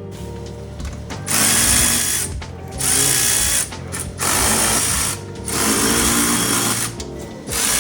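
Power tool run in four bursts of about a second each, undoing bolts while stripping the engine bay.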